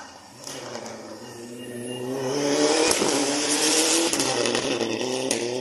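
Rally car on a dirt stage approaching under hard throttle and passing close by, loudest about halfway through, with a noisy hiss over the engine at its closest and a sharp crack as it goes past. The engine note then drops in pitch as the car moves away.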